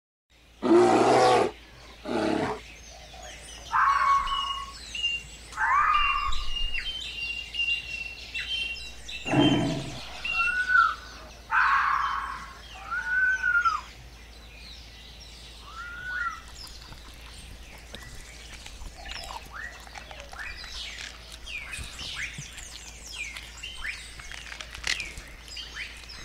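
Forest ambience with songbirds chirping and whistling, including a repeated arching whistle and quick high chirps, busiest in the second half. A few loud, deep growls break in near the start and again around nine seconds in.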